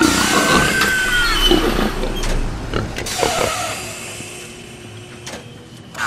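Sci-fi machinery sound effects: a loud hiss with a whine that rises and falls in the first second or so, then scattered metallic clanks and short electronic chirps over a low hum, growing quieter after about three seconds.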